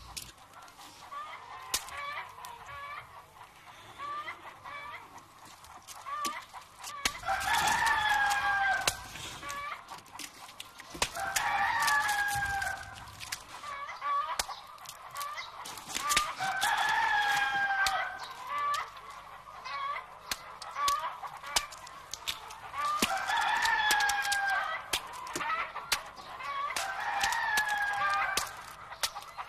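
Chicken calls: runs of short clucks, each building into a long, drawn-out falling call, about five times over.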